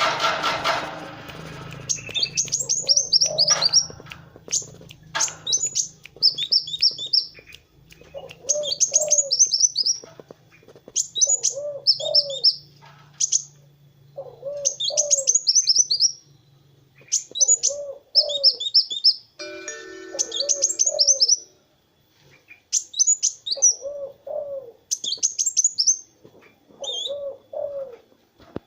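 Kolibri wulung sunbird singing: bursts of rapid, high, twittering trills about a second long, repeated every two seconds or so, many with lower cooing notes under them. The first two seconds are covered by a loud rushing noise.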